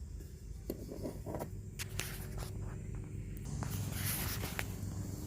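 A few small sharp clicks and some handling noise as a car door's plastic trim cover and the handle's electrical connector clip are worked loose, over a steady low background hum.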